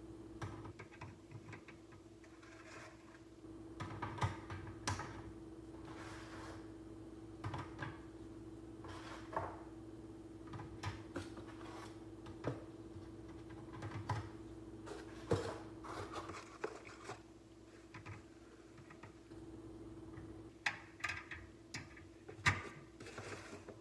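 Eggs clicking against one another and against a wire egg basket as a hand moves them about, in irregular light clinks and knocks, with a quicker run of louder clinks near the end as the basket's hen-shaped wire lid is closed. A steady hum runs underneath.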